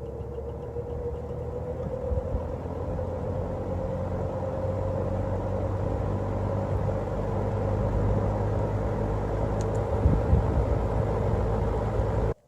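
Vintage plastic-bladed GE box fan starting up on its low setting: the motor hum and air noise build steadily in loudness, with a slight upward drift in pitch as the blades come up to speed. It cuts off suddenly near the end.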